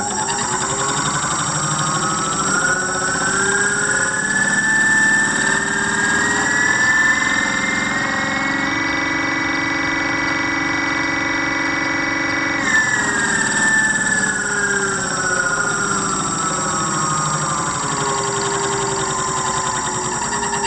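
Homemade three-phase scooter hub motor spinning with no load: a whine that rises in pitch as it speeds up over about nine seconds, holds steady at top speed for about four seconds, then falls as the motor slows down.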